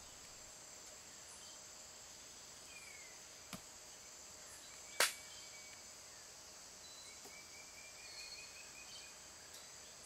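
Faint, steady high-pitched insect chorus of rainforest ambience, with a single sharp click about five seconds in, a weaker click shortly before it, and a few faint short chirps near the end.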